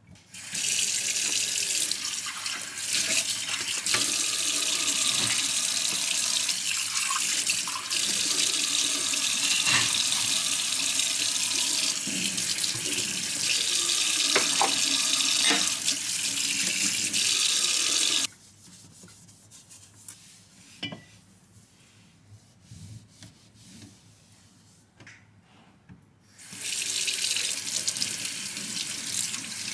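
Kitchen tap running into a stainless steel sink, water splashing steadily. Past the middle the water stops for several seconds, leaving only a few light knocks, then runs again as a sponge cloth is rinsed under it.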